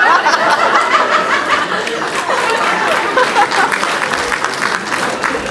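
Theatre audience laughing, many voices at once, with some scattered clapping in the second half.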